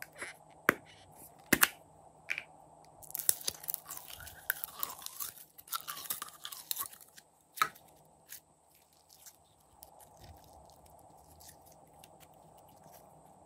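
A few sharp plastic clicks as the lid comes off a small slime cup, then about four seconds of sticky crackling and squelching as glitter slime is pulled out of the plastic cup, ending with one more click. The rest is faint handling.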